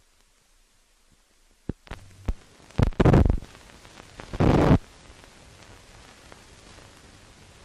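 Hiss and crackle of an old optical film soundtrack: several sharp clicks, then two loud bursts of noise about half a second each, a second and a half apart, then steady hiss with faint scattered ticks.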